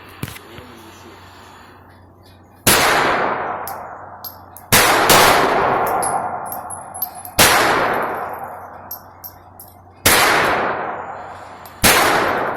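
.22 target pistol fired five times at a slow, even pace, a shot every two to three seconds. Each sharp crack is followed by a long fading echo.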